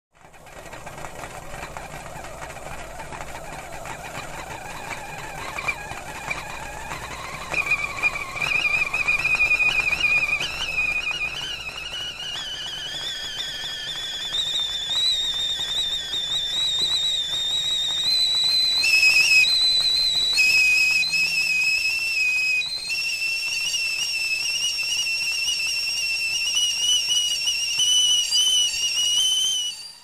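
Stovetop kettle's steam whistle sounding as the water comes to the boil. The wavering whistle starts low and climbs steadily in pitch and loudness over the first half, then holds high, flipping between two pitches for a few seconds past the middle. It stops abruptly at the end.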